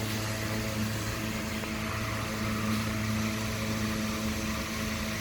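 Steady mechanical hum, a low drone with several even tones that hold pitch and level throughout.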